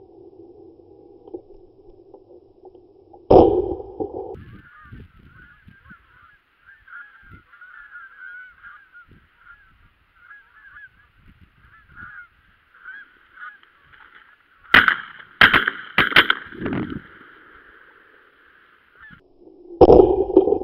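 A flock of geese honking in flight overhead, many birds calling at once, with a quick series of four sharp bangs about three-quarters of the way through.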